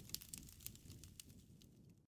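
Wood fire crackling faintly, with scattered sharp pops and snaps over a soft low rumble, thinning out toward the end.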